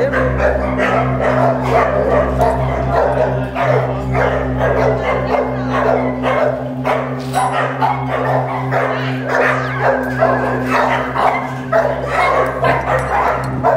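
Rottweiler barking repeatedly, over background music that holds a steady low drone.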